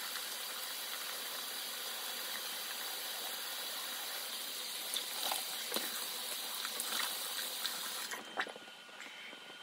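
Bathroom sink tap running in a steady stream while a face is washed with wet hands, with a few splashes of water. The tap is turned off about eight seconds in.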